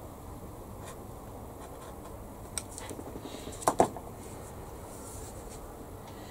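Small handling noises on a modelling bench: a few soft scratches and light taps, then two sharp clicks close together a little under four seconds in, over a steady background hiss.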